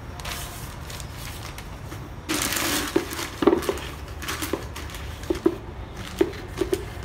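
Hands handling food waste in a plastic bucket. A rustling, crinkling burst comes a couple of seconds in, then a string of short, hollow plastic knocks and clunks.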